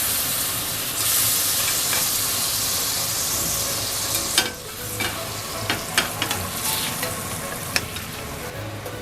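Abalone sizzling in a frying pan. The hiss is loud at first and eases off about four seconds in. After that come several sharp clicks of a utensil against the pan as it is stirred.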